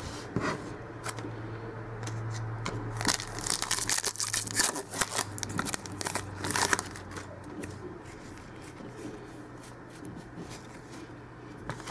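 Trading-card pack wrapper torn open and crinkled, with busy rustling and crackling for a few seconds in the middle, then quieter shuffling of cards. A low steady hum runs underneath.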